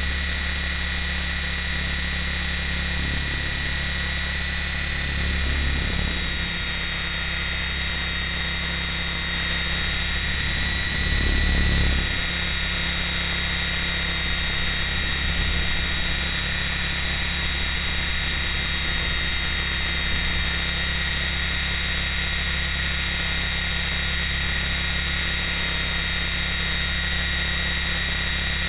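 ESKY Belt CP V2 electric RC helicopter in flight, heard close up from the keychain camera it carries: a steady high whine from the motor and gears over a low rotor hum, swelling slightly twice, about five and eleven seconds in.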